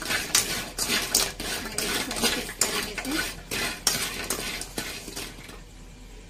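A cooking utensil scraping and knocking against a pan as fried idli pieces are stirred and tossed with spice powders, a quick run of scrapes and clinks that stops about five and a half seconds in.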